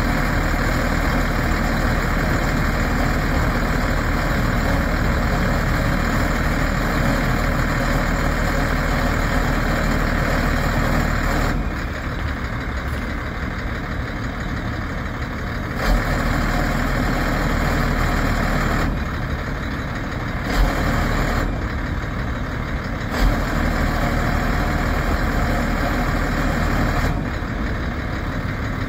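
1992 Ford F700 bucket truck's engine idling while powering the aerial boom as the boom is raised and swung. The sound drops back several times, with a few short clunks as the boom controls are worked.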